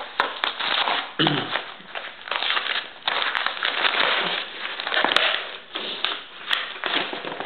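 Paper envelope and packing being handled close to the microphone: continuous rustling and crinkling with a few sharp clicks.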